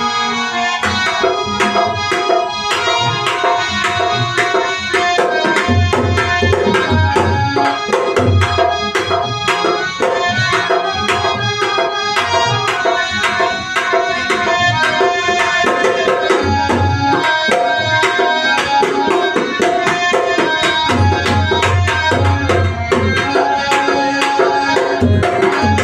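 Dholak played in a fast, dense rhythm, with sharp slaps on the treble head and stretches of deep bass-head strokes, over a sustained melody line.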